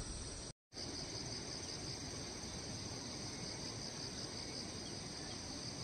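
Insects chirring steadily in a high, evenly pulsing trill over faint outdoor background noise; the sound cuts out for a split second about half a second in.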